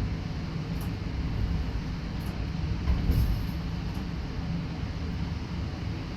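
Train running on the rails, heard on board as a steady low rumble with a few faint ticks and a slightly louder knock about three seconds in.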